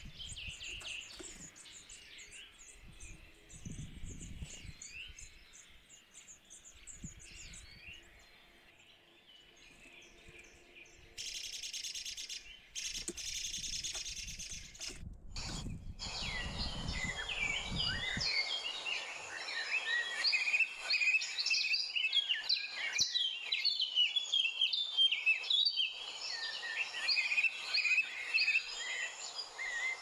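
Small birds chirping and calling over a low rumble. About sixteen seconds in, a louder, denser chorus of many birds chirping takes over. Before that, a steady high hiss runs for a few seconds.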